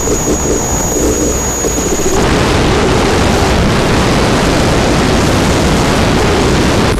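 Harsh noise wall from a modular synthesizer: a loud, dense, distorted static with no beat or melody, and a thin high whistle over it that stops about two seconds in.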